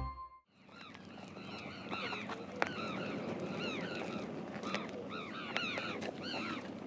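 A flock of birds calling, many short rising-and-falling calls repeating and overlapping, starting about half a second in.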